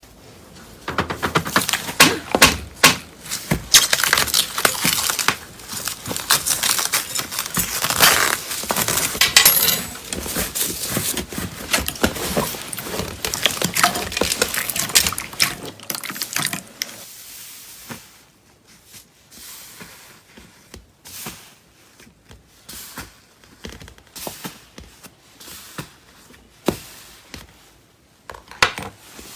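Crunchy slime being squeezed and worked by hand, giving a dense run of crackling, popping clicks; about two thirds of the way through it turns quieter, with scattered single pops and clicks.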